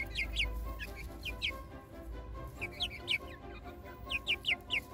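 Young silkie chicks peeping: short, high peeps that slide down in pitch, in quick groups of two to four, the loudest group of four near the end.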